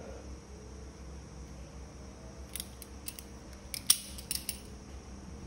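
Pliers being handled and worked open and shut, giving a quick run of sharp metal clicks about halfway through, the loudest near the end of the run.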